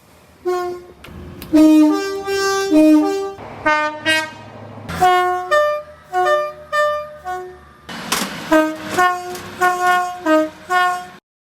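Locomotive horn sounded in a rapid series of short and longer blasts, the pitch changing from one blast to the next, over a low rumble. It cuts off suddenly near the end.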